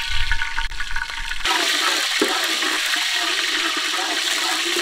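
Mustard seeds sizzling in hot sesame oil in a pan. A steady, loud sizzle starts suddenly about a second and a half in.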